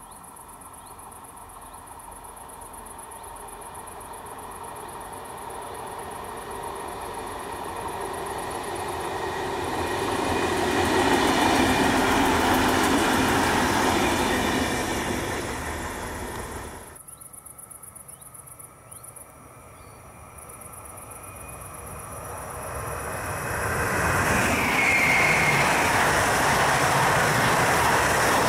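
A DB class 612 diesel multiple unit approaches and passes at speed, its engine and wheel-on-rail noise swelling to a peak and then fading. After an abrupt cut, an S-Bahn electric multiple unit runs past, building to a loud rush of wheels on rail with a brief high squeal.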